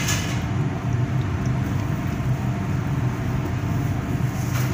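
Steady low mechanical hum with a constant rushing noise underneath, unchanging throughout.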